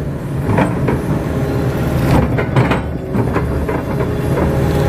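A Kato hydraulic crawler excavator's diesel engine runs steadily under working load, heard from inside the cab. Short knocks and scrapes come from the bucket pressing and smoothing the wet mud of the dike slope.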